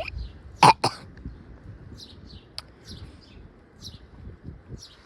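A person coughing twice in quick succession, less than a second in, followed by short high bird chirps now and then.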